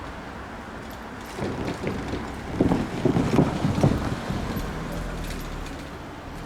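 Train wheels clattering over rail joints or points: a quick run of sharp clacks, several a second, that builds over the first couple of seconds and fades away over a steady rumble.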